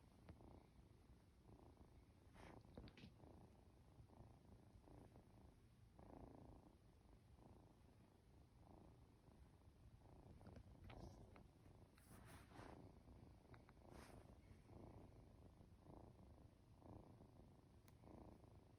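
Norwegian Forest Cat kitten purring quietly, a soft low pulsing rumble, as it is stroked and grows drowsy. A few brief faint crackles come through now and then.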